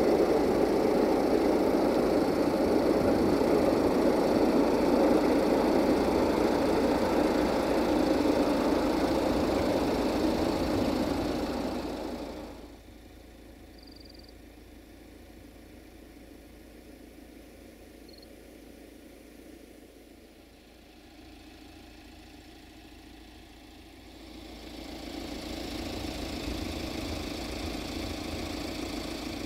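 Diesel locomotive engine running steadily, likely the LDE2100's Sulzer V12 diesel. The sound cuts off abruptly about halfway through to faint background, and the engine comes back, quieter, near the end.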